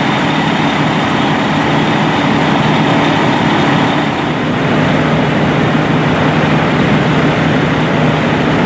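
Heavy diesel engine of a fire truck running steadily, with a steady low hum under a rushing noise.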